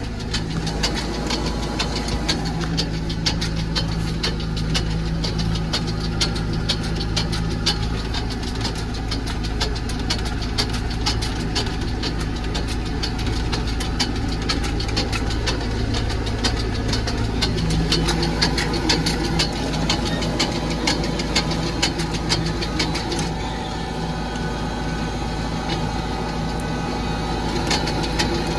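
Tractor engine running steadily while driving, heard from inside the cab, with a constant patter of rattling clicks over the engine hum.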